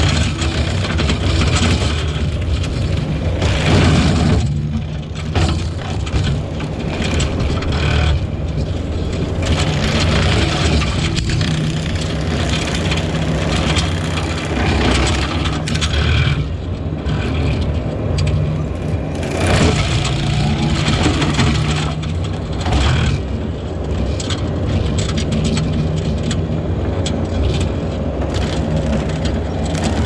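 Compact track loader's diesel engine running hard while its brush cutter shreds brush and small trees, with wood cracking and splintering throughout.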